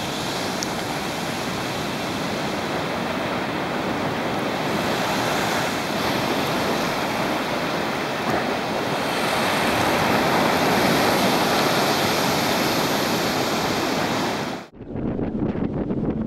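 Sea swell surging against a cliff and pouring off a rock shelf, a steady rush of surf that swells louder about ten seconds in. About a second and a half before the end it cuts suddenly to wind buffeting the microphone.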